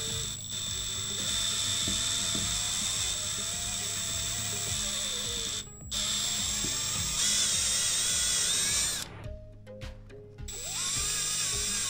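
Cordless drill drilling out a stripped exhaust-header bolt hole in the cylinder head of a Briggs LO206 engine, running with a steady whine. It stops briefly about halfway through and again for about a second near the end, then starts drilling again.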